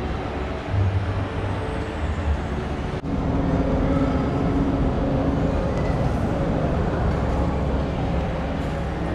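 Steady rumble and hiss of a moving vehicle. It drops sharply for a moment about three seconds in, then runs a little louder with a faint steady hum.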